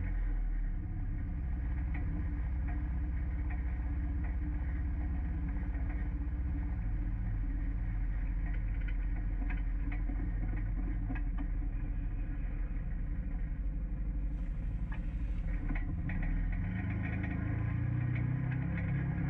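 Four-seater UTV engine running as it drives, its note shifting up and down in steps, with frequent short knocks and rattles.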